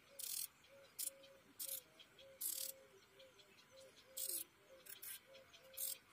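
Insects chirping outdoors in short, high, buzzing bursts, about seven of them at uneven intervals, over a faint, quickly repeating low note.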